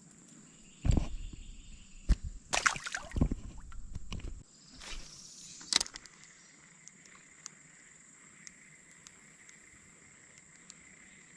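A few knocks and splashy rustles in the first half, then a steady high insect drone.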